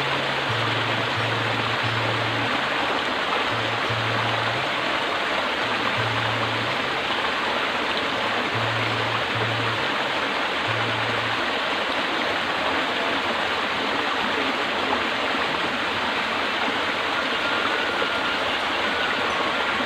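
Steady rush of flowing stream water. Low sustained notes of background music sound over it during the first half.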